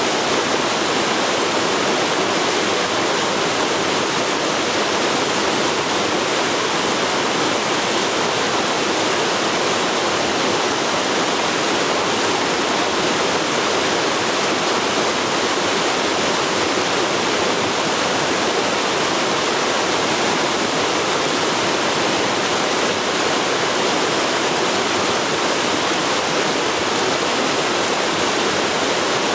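A forest river flowing: a steady, unbroken rush of water that does not change.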